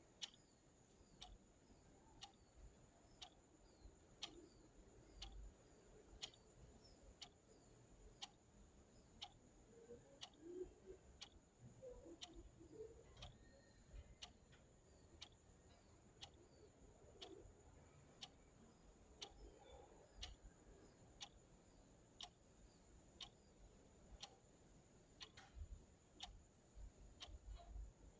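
Clock ticking softly and evenly, about one tick a second.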